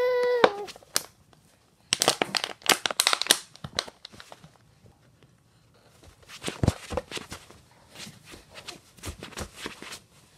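Thin plastic water bottle crinkling and crackling as a baby squeezes and handles it, in two spells of rapid clicks: about two seconds in, then again from about six seconds to near the end. A short baby vocalization sounds at the very start.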